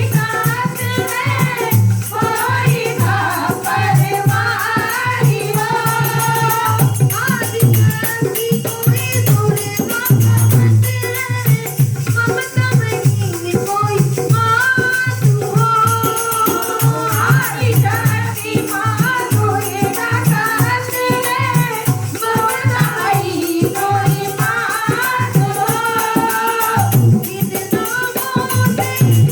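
Hindu devotional song (bhajan) sung by voices to a dholak drum beat, with a jingling rattle keeping time.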